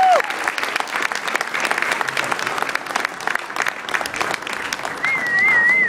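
Audience applauding, a dense steady clatter of many hands clapping, with a high wavering tone near the end.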